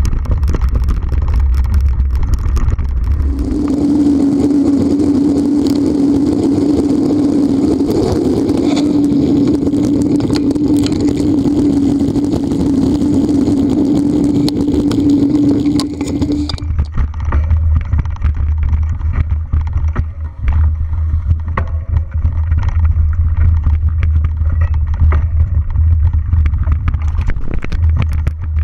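Mountain bike ridden fast over a dirt forest trail, heard from a camera mounted on the bike: wind rumble on the microphone and the rattle of the bike over the ground. From a few seconds in until about halfway, a steady buzzing hum sits over the noise, then cuts off suddenly.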